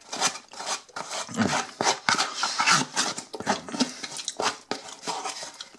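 Metal fork scraping and scooping through leftover chili cheese fries in a cardboard takeaway box, in irregular strokes, with chewing sounds close to the microphone.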